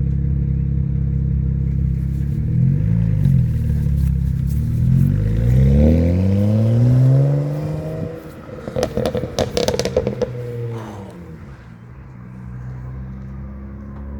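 BMW 335i's turbocharged straight-six, tuned to pop, idling, blipped once, then revved up and let off. On the overrun the exhaust pops and crackles in a rapid string for about two seconds, and then the engine settles back to idle.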